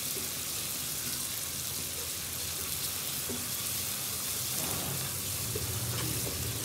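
Spice masala sizzling in hot ghee in a non-stick pot as it is stirred with a wooden spatula: a steady frying hiss with a few light scrapes, the stage where the spices are fried until no longer raw.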